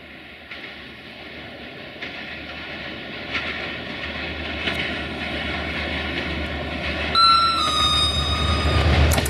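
Diesel locomotive hauling a passenger train approaching, its engine hum and the running noise growing steadily louder. About seven seconds in the locomotive's horn sounds for about a second and a half, a higher note stepping down to a slightly lower one, and the first sharp wheel clicks on the rails come just before the end.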